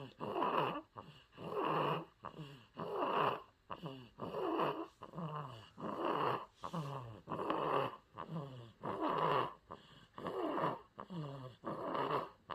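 A newborn baby snoring in sleep, a growly rumbling snore with each breath, about one breath every second and a half. The parent puts the snoring down to a blocked nose.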